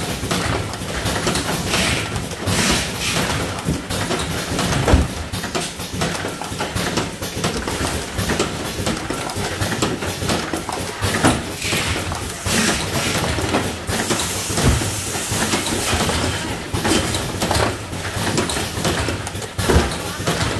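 Automatic cartoning machine running: a steady mechanical clatter of its rotary turret and folding mechanism, with frequent sharp clicks and knocks as cartons are formed and a brief burst of hiss about two-thirds of the way through.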